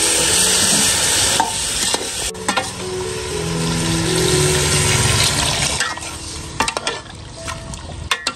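Pork pieces sizzling in a hot aluminium pot while a metal ladle stirs them. Water is poured in midway, and the sizzle dies down about six seconds in, leaving a few sharp clinks of the ladle against the pot.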